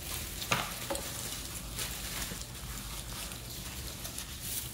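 Paper sandwich wrapper crinkling and rustling as it is handled, with a sharp click about half a second in.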